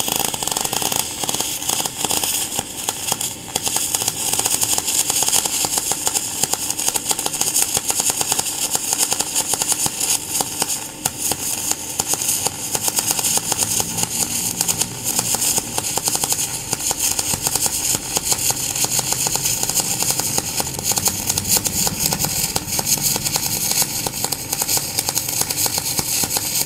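MIG welding arc from an NBC-288 welder running aluminium wire, laying a continuous bead on aluminium plate: a steady, dense crackle and hiss throughout.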